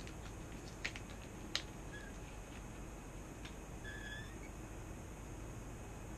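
A few faint sharp clicks and light taps from fingers handling a small metal treble hook, over a steady quiet background hiss.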